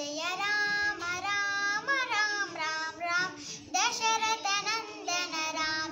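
A young girl singing a devotional song on Rama's name, in phrases of held notes that glide up and down between short breaths.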